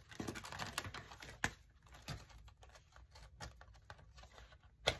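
Clear plastic sleeve pages of a spiral-bound cash-envelope binder being turned and handled, with light rustling and a run of small clicks and taps. One sharper tap comes about a second and a half in, and another near the end.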